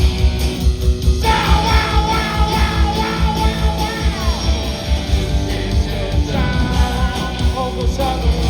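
Live punk rock band playing, with a steady drum beat, electric guitar and bass. A held high lead line comes in about a second in and slides downward around the middle.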